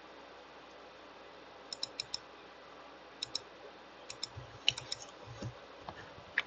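Computer mouse clicking: a quick run of three clicks about two seconds in, then pairs and small clusters of clicks over the next few seconds while a network settings dialog is opened and a field selected.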